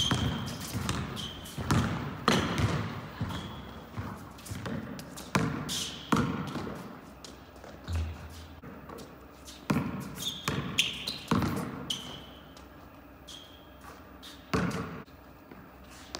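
Basketball being dribbled and bouncing on a hard indoor court, irregular sharp knocks, with sneakers giving short high squeaks several times as the players move. It goes quieter over the last few seconds.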